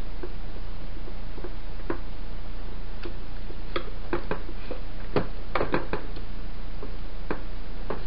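Irregular small clicks and taps of a screwdriver working on the metal parts of an electric fan motor, coming thicker about four to six seconds in, over a steady low hum.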